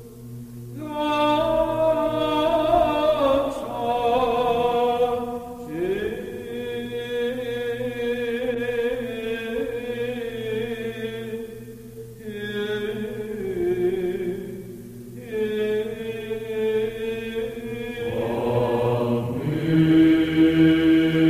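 Chanting voices used as background music. They sing phrases of long held notes, with short breaks between phrases, over a steady low drone.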